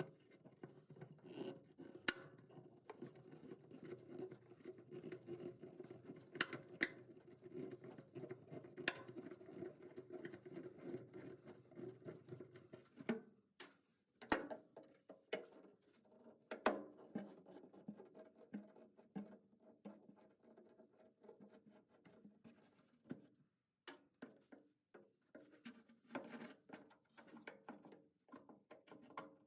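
Faint scratching, scraping and scattered light clicks of hand work backing out Phillips head screws from a metal kick panel. A faint steady hum runs under it and stops about 13 seconds in.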